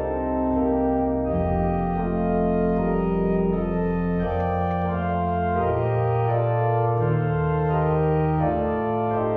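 Two-manual digital organ with pedalboard playing a slow, legato passage in G major: sustained chords on the manuals, changing about once a second, over a moving pedal bass line.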